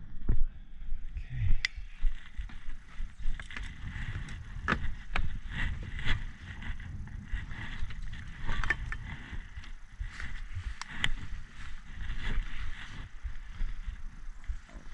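Quad ATV moving along a bumpy dirt trail: a steady low rumble with frequent short knocks and rattles.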